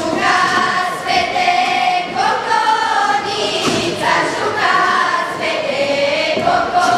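A group of girls singing a folk song together in unison, holding long notes that step up and down.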